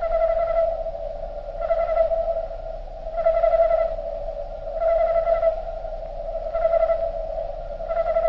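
Cricket chorus slowed down far below its natural speed, so the chirping becomes a steady humming tone with a swelling, choir-like phrase about every one and a half seconds.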